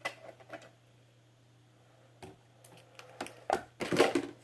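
Hands handling plastic bottles and containers on a table: scattered light clicks and taps, then a louder burst of clattering and rustling about four seconds in.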